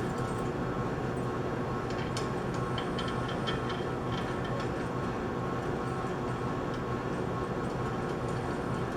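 Steady machinery hum with a cluster of light metallic clicks and ticks from about two to four and a half seconds in, as pump parts and bolts are handled during reassembly.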